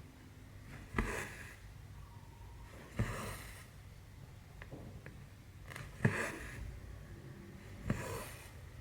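Needle and thread stitching through 14-count cross-stitch canvas: four sharp pokes a couple of seconds apart, each followed by a short rasp of thread drawn through the fabric.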